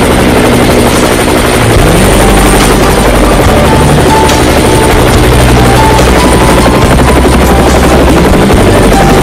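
Helicopter in flight, its rotor and engine noise loud and steady.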